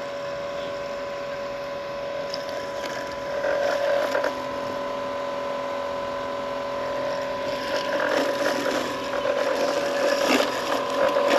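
EcoFlow Blade robotic lawn mower's electric motors running with a steady whine, growing a little louder in the second half with a few brief knocks.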